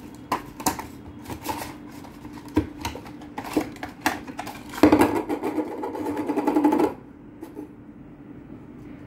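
Stiff clear plastic packaging of a braided fishing-line spool clicking and crackling as it is handled and opened, with a louder continuous rattle for about two seconds past the middle as the spool is worked out, cutting off suddenly.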